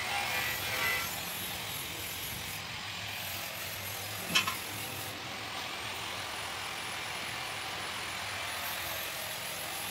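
Steady background noise, with one sharp knock about four seconds in.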